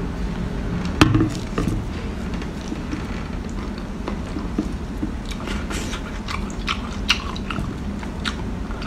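Close-up eating sounds of a person biting, sucking and chewing on a chili-oil-coated octopus tentacle: many short wet clicks and smacks over a steady low hum, the sharpest one about a second in.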